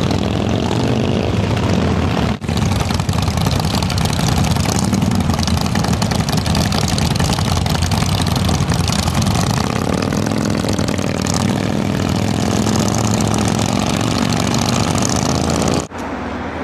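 Several motorcycle engines running, a group of bikes idling and pulling away, with engines revving up in rising pitch about ten seconds in.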